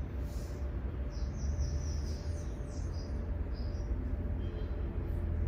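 A steady low hum, with a small bird chirping faintly several times in quick succession through the middle.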